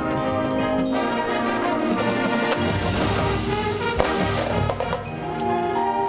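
Marching band playing: held brass chords give way in the middle to a stretch of heavy drums and percussion with a sharp hit about four seconds in, and the brass chords return near the end.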